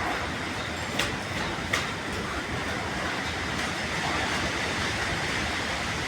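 Strong wind rushing steadily and buffeting the microphone, with two brief clicks about a second apart early on.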